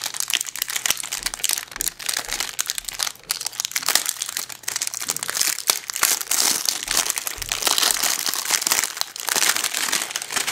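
Packaging crinkling and crackling as a new camcorder is unwrapped by hand, a dense, continuous run of crackles.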